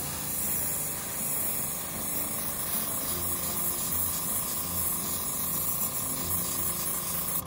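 Central Pneumatic airbrush spraying leather dye: a steady, high air hiss that cuts off suddenly at the very end.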